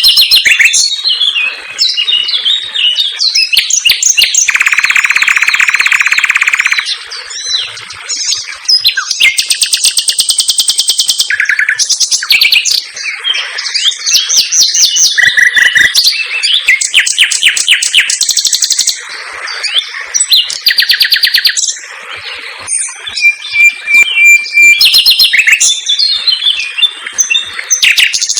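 Common nightingale singing continuously in rapid, varied phrases: quick repeated notes, fast trills and high clear whistles, with a long dense rattling run about five seconds in.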